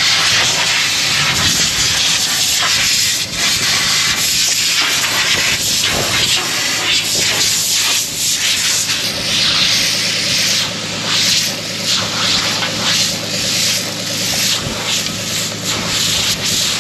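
Compressed air hissing from an air-blowing wand, with a steady engine hum underneath; the hiss grows stronger about halfway through.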